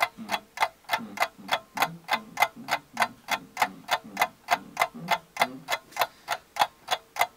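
Steady, rapid ticking, about four sharp ticks a second, like a ticking clock.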